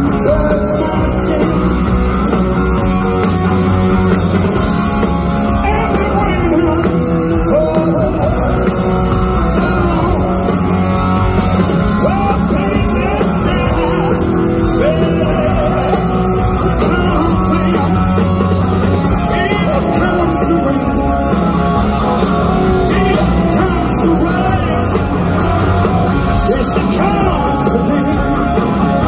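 Live rock band playing loud through an arena sound system: a male lead vocal sings over electric guitar and a steady rock backing, captured on a phone microphone in the crowd.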